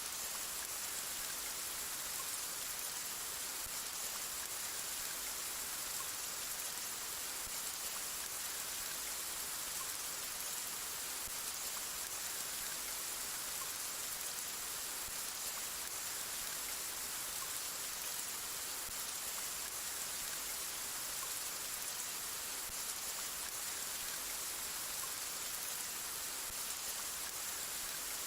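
Steady rain falling, an even hiss that does not change, with no thunder or other events.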